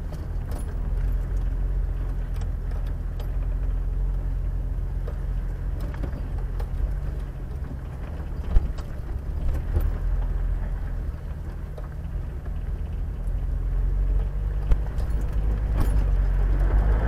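Off-road vehicle driving on a dirt road: a steady low engine and road drone, with a couple of sharp knocks or rattles, one about halfway and one near the end, and the drone growing a little louder toward the end.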